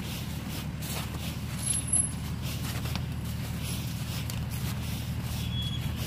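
Off-road SUV engine running steadily at low revs, with a couple of brief high squeaks about two seconds in.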